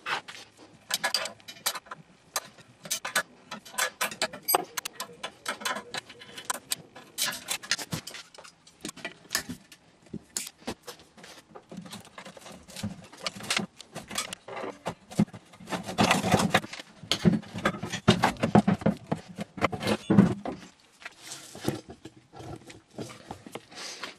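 Scattered clinks, taps and knocks of metal parts being handled: cut bolts, nuts and a stainless steel cage being taken off a sonar transponder's end cap. The handling gets busier, with rubbing and knocking, about two-thirds of the way through, as the end plate is worked loose from the housing.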